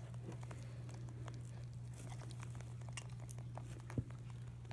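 Holland Lop bunnies moving about in hay in a plastic tub: faint scattered rustles and small clicks, with one sharper knock about four seconds in, over a steady low hum.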